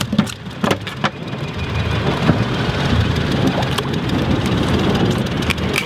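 A freshly caught yellowfin tuna thrashing on a boat's fibreglass deck, several sharp knocks against the deck and gaff in the first second or so. Then a steady rushing noise with a low hum underneath.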